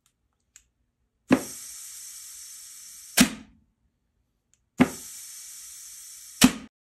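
Compressed air blown twice, about two seconds each time, through an air nozzle into the low/reverse clutch passage of a 66RFE automatic transmission case. Each blast begins and ends with a sharp knock, the clutch piston applying and releasing under the air pressure, a sign that the circuit holds and the clutch works.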